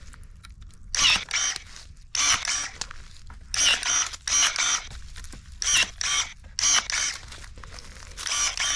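Cordless electric pruning shears making a series of short, sharp whirring snips through grapevine canes, singly or two in quick succession, roughly every second or so.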